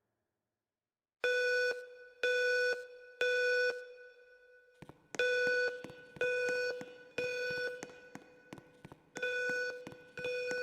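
School fire alarm's evacuation tone sounding in the temporal-three pattern: three half-second buzzing tones, a pause, then three more, repeating. It starts about a second in, between the system's recorded evacuation announcements, with scattered faint clicks.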